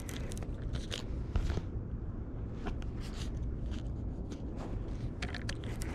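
Irregular crunching footsteps and scrapes over a steady low rumble.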